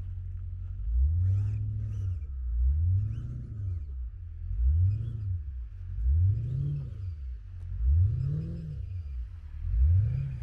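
A car engine revving up and falling back over and over, about every second and a half, over a steady low idle.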